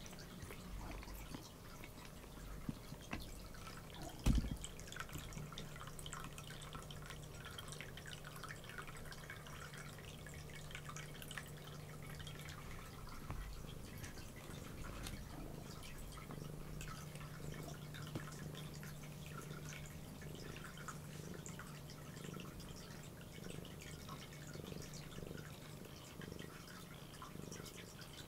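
A cat grooming itself: soft, wet clicks of its tongue licking its fur, with one sharp knock about four seconds in.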